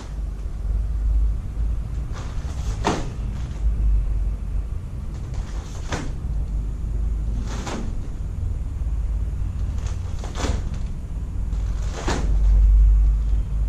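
Taekwondo uniform snapping with each block and punch of a poomsae: about five short, sharp snaps a couple of seconds apart, over a steady low rumble.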